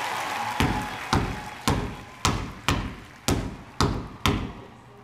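A basketball being dribbled on a hard stage floor: eight even bounces at about two a second, each with a short echo.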